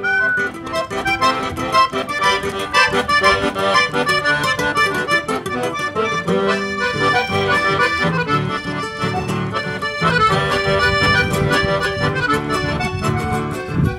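Piano accordion playing the tune with an acoustic guitar accompanying it, a duet of accordion and guitar with the accordion loudest.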